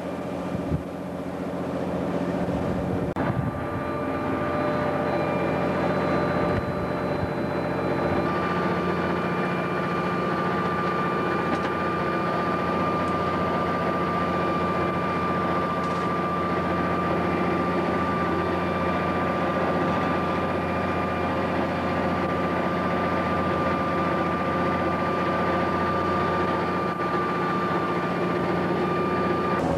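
A fishing boat's inboard diesel engine running steadily under way, with a steady high whine over the engine note. The engine note shifts slightly about eight seconds in.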